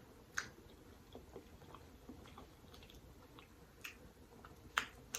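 Faint eating sounds: chewing with a few soft wet mouth clicks, the loudest a little before the end.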